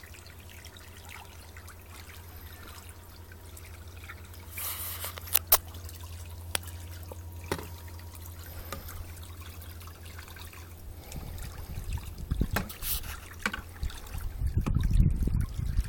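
Pool water trickling and lapping over a steady low hum, with a few sharp clicks and splashes. In the last few seconds it turns into a louder, low churning rumble.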